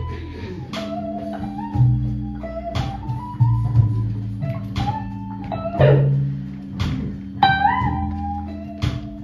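Live blues band: an electric guitar plays a single-note lead with bent notes over a bass line and a held keyboard chord.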